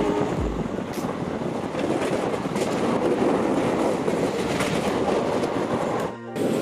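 Passenger train running at speed, heard from its open doorway: a steady rush of wheel and track noise with occasional sharp clicks. It dips briefly about six seconds in, then resumes.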